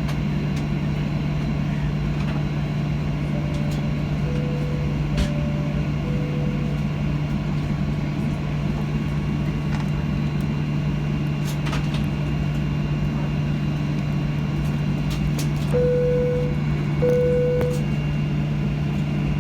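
Steady cabin drone of a Boeing 737-800 on the ground before take-off, with a low hum from the engines and air conditioning. Over it, two high-low pairs of electronic cabin chimes sound a few seconds in, and two longer single chime tones near the end.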